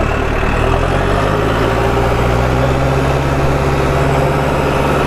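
New Holland TL100A tractor's four-cylinder diesel engine running steadily, its note shifting slightly about a second in.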